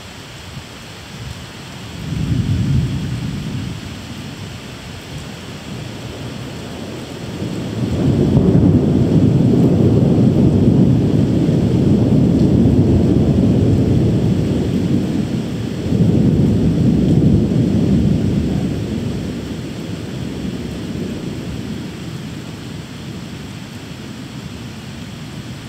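Thunder rolling over steady rain: a short peal about two seconds in, then a long, deep rumble from about eight seconds that swells again near the middle and slowly dies away.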